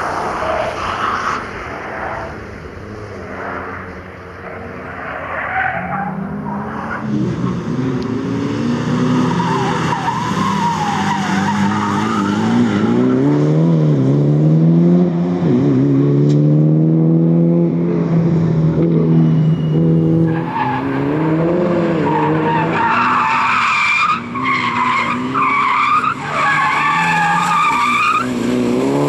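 Ford Focus RS Mk1's turbocharged 2.0-litre four-cylinder engine driven hard around tight turns, its note rising and falling and held steady for several seconds in the middle, with tyres squealing in the first few seconds and again through the last several seconds.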